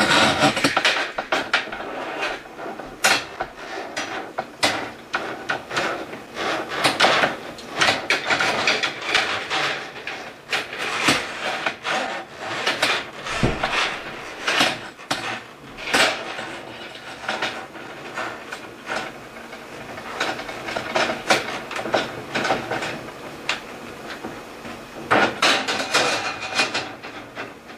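Close-up handling noises: irregular rubbing, scraping and clicking as hands work the float cord and plastic fittings at the tank lid, with one dull thump about halfway through.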